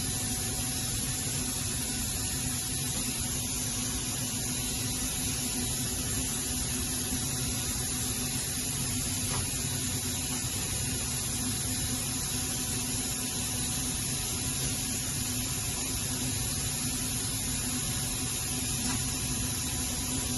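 Steady electrical hum with a high hiss over it, unchanging throughout.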